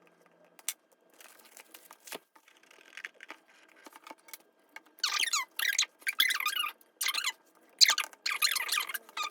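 Plastic wrapping on an album being torn open and crinkled. A few faint crinkles come first, then a run of loud tearing rips over the last four seconds or so.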